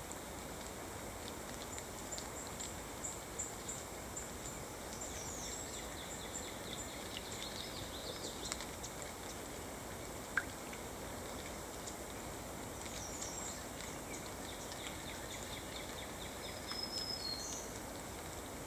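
Steady rain falling into a puddle and on the ground around it, an even hiss throughout. Songbirds give short runs of high chirps now and then, and there is one sharp tick about ten seconds in.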